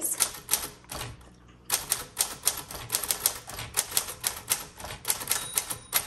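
1938 Corona Sterling manual portable typewriter being typed on: a few scattered keystrokes, a short pause, then a quick run of muffled typebar clacks. Near the end the margin bell rings once, warning that the line is nearly full.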